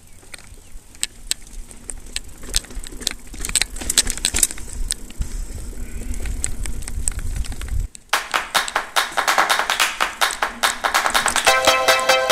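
Mountain bike ridden over a dirt trail: rattling clicks from the bike over a low rumble of wind and tyres on the camera's microphone. About eight seconds in, this cuts off suddenly and electronic music with a steady beat takes over.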